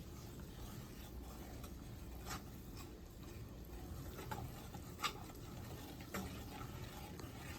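Spatula stirring gram flour roasting in ghee in a pan: soft scraping, with a few light clicks against the pan.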